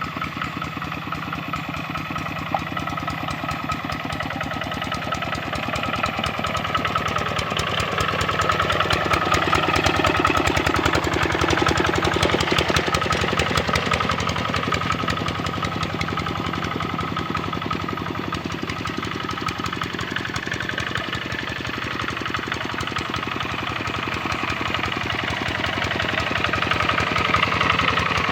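Kubota RD65 single-cylinder diesel engine on a hand tractor running steadily with a rapid chugging beat. It grows louder about a third of the way in and again near the end, as the load or throttle changes.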